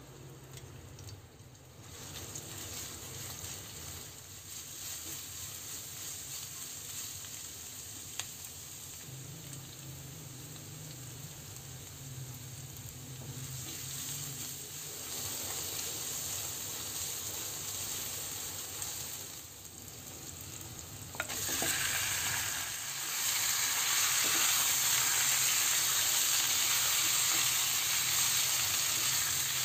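Sliced onions, garlic and curry leaves sizzling in hot oil in a non-stick wok, with a plastic spatula scraping and stirring. About two-thirds through there is a sharp click, and the frying turns much louder once raw chicken legs are in the pan.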